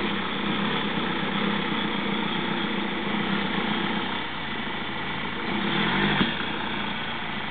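BMW 1 Series hatchback's engine running at low speed as the car crawls over rough ground. The engine swells briefly and louder, with a low thump, about six seconds in.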